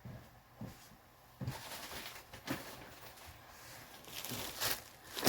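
Light rustling of fabric being handled, with a few soft knocks.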